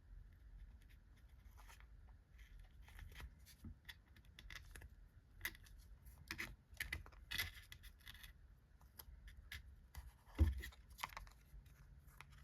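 Faint scratching, rustling and light taps of chipboard and sticker-paper pieces being handled and lined up by hand, with a single louder thump about ten seconds in.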